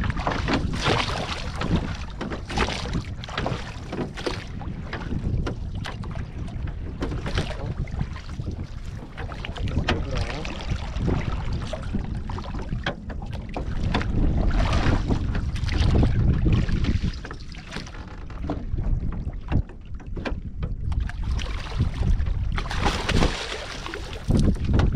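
Wind buffeting the microphone over choppy water, with small waves lapping and splashing against the side of a wooden boat.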